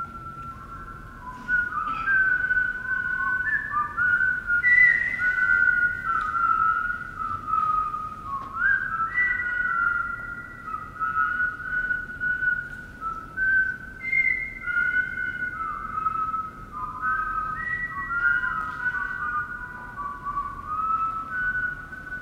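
Several overlapping whistled notes, each held for a second or two and then stepping up or down to the next pitch, weaving a slow, wandering melody.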